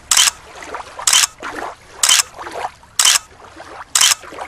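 Rhythmic water splashing, one short splash about every second, like steady paddle strokes.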